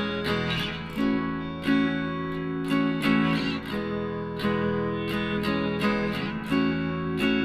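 Background music: acoustic guitar strumming a steady pattern of chords.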